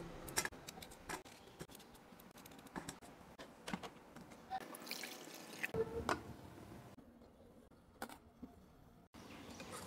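Faint, irregular clicks and taps of kitchen prep work, spaced out with quiet stretches between, as potatoes are cut small for steaming.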